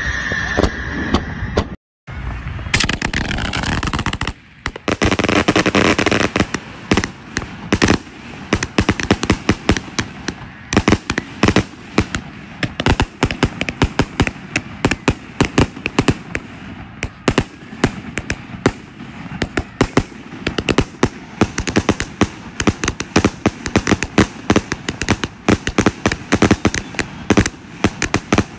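Fireworks going off in a dense barrage of rapid crackling and popping, many sharp reports a second with louder bangs scattered through. It is preceded by a couple of seconds of steady rushing noise with a high tone that cuts off abruptly.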